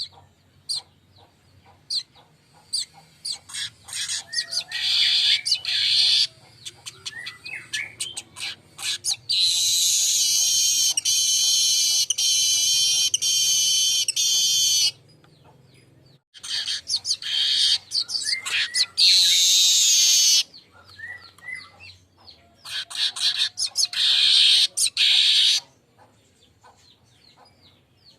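Manyar kepala emas weaver singing: scattered short high ticks running into long, high, buzzy trills, four of them, the longest about six seconds.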